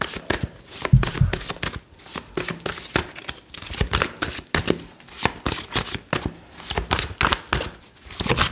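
Tarot deck being shuffled by hand: a quick, uneven run of card flicks and riffles, with a low thump about a second in.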